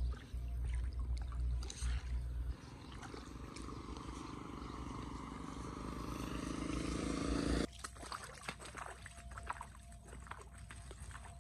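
A low rumble with knocks, then a motorbike engine's drone swelling as it nears, cut off suddenly a little under eight seconds in. After that, footsteps splash and slosh through shallow floodwater.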